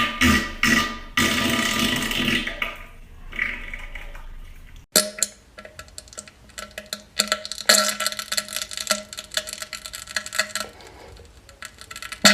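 A person farting loudly and raspily for several seconds. After a sudden cut, a second clip follows with a steady low hum under scattered short rasps and pops.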